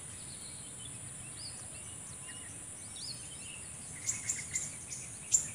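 Outdoor field ambience: a steady, high-pitched insect drone with a few small bird chirps, and a run of short clicks and chirps in the last second and a half.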